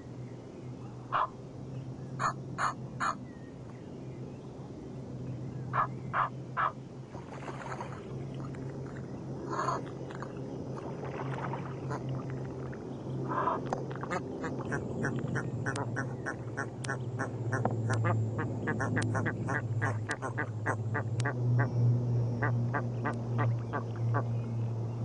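Egyptian geese and their goslings calling close up: short honks in groups of three early on, then a fast run of short, sharp calls in the second half, over a steady low hum that grows louder.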